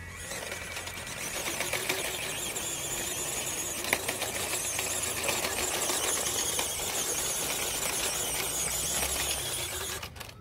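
RocHobby 1:18 scale Unimog RC crawler's small electric motor and gearbox whining under load, with its tyres crunching and ticking over loose stones and dirt as it climbs. There is one sharp knock about four seconds in. The sound cuts off abruptly near the end.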